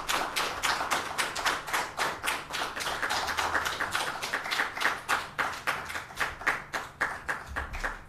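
Applause: a run of distinct hand claps that thins out and stops near the end.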